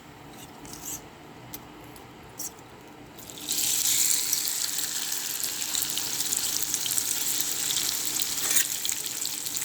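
A few light clicks of utensils, then about three and a half seconds in a loud sizzle starts suddenly and keeps going steadily: bean sprout fritter batter frying in hot oil.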